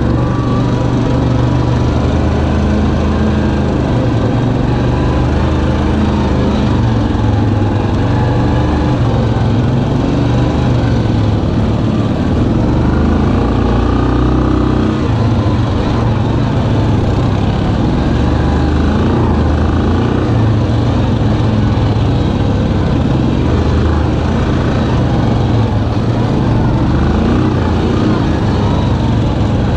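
Yamaha Kodiak 700 ATV's single-cylinder engine running under way on a dirt trail, its pitch rising and falling with the throttle.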